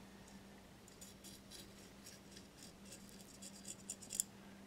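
A thin clear applicator rod scraping in short, faint strokes along the broken edge of a porcelain basket, spreading Hxtal clear epoxy along the break. The strokes come more often from about a second in, with one sharper tick near the end.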